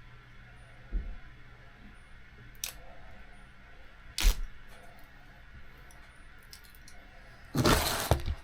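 Small tools and parts being handled on a workbench: a few separate sharp clicks and knocks, the loudest about four seconds in, then a louder noisy handling sound about half a second long near the end.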